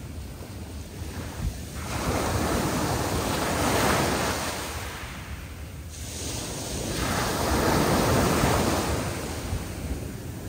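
Sea waves breaking and washing on the shore, two swells building and falling back, the first peaking about four seconds in and the second about eight seconds in. Wind buffets the microphone with a low rumble underneath.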